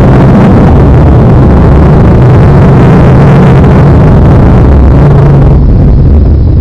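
Loud, distorted monster sound effect, customised to sound futuristic: a low rumbling drone with hiss above it, whose upper range cuts off about five and a half seconds in.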